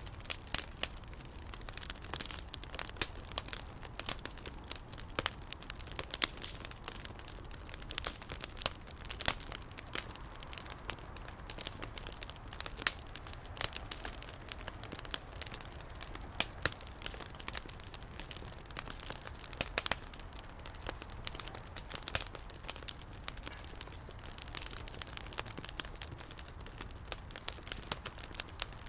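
Bonfire crackling, with many sharp irregular pops.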